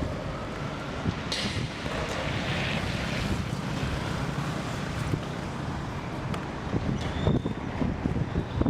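Wind buffeting the microphone over a steady low, rough rumble, with scattered short knocks.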